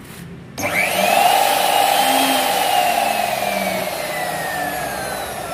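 DEKTON DK 358 belt-driven 2800 W metal cut-off saw switched on about half a second in, running free with no cut. Its motor whines up to speed in about a second and a half, then slowly winds down, the whine falling steadily in pitch as the blade coasts.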